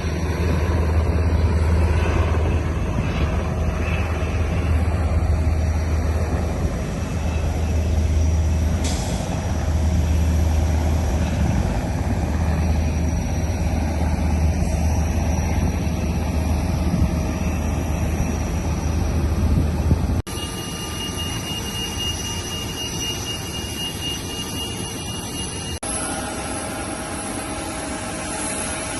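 Jet engines of an Airbus A350-900 running: a loud, steady rumble for about twenty seconds, then, after an abrupt cut, a quieter steady engine noise with a thin high whine.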